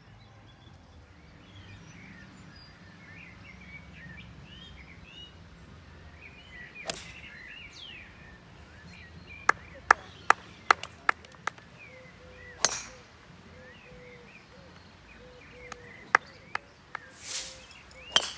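A golfer's tee shot near the end: the whoosh of the club swinging, then the sharp crack of it striking the ball. Birds sing throughout, and several sharp clicks and knocks come in the middle.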